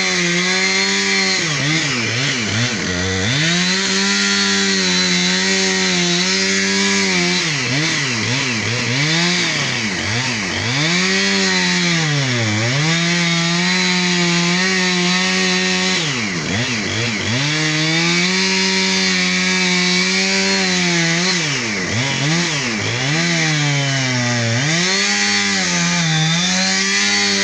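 Two-stroke chainsaw running at high revs while cutting into a palm trunk. Its engine note drops and climbs back again and again as the bar is worked through the wood.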